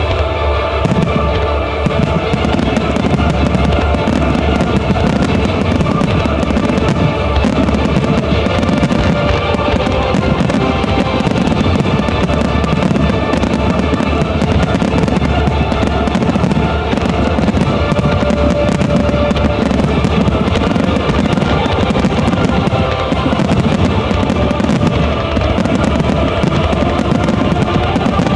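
Fireworks going off in a dense, rapid barrage, deep booms one after another with a lot of crackling, over music playing throughout.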